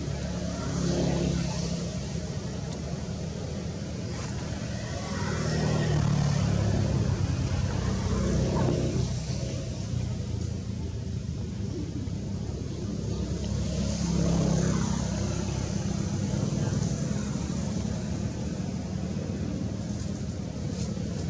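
A motor vehicle engine running with a steady low hum, swelling louder twice.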